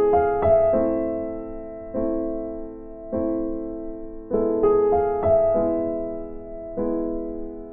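Slow, gentle piano music: sustained chords struck about once a second, each fading away, with a few higher notes laid over them.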